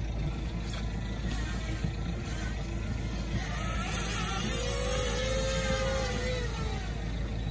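Small quadcopter drone flown in and caught by hand, its propellers whining for a couple of seconds in the middle before stopping, over the steady low rumble of the sailboat's engine.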